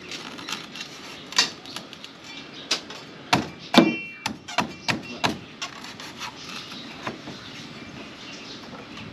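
Machete chopping at a coconut husk: irregular, uneven strokes. The loudest strike, a little before the middle, rings briefly like metal.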